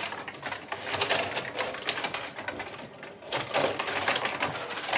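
Rod hockey table in play: rapid, irregular clicking and clattering from the rods and the spinning plastic players, easing off briefly a little past the middle.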